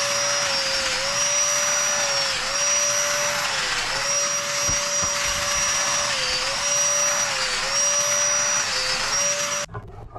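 Festool Domino joiner running with a steady high whine over a rushing noise, its pitch sagging briefly several times as the cutter plunges into the board ends to cut mortises. It cuts off suddenly near the end.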